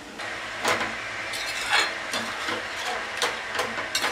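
A stainless steel slotted spoon stirring chicken curry in a steel pot, scraping and clinking against the pot several times, over a steady sizzle of the curry cooking in a little water.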